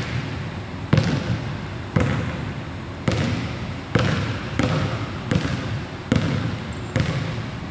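Basketball bouncing on a hardwood gym floor, about eight bounces roughly a second apart. Each bounce is a sharp thud with a long echo from the large hall.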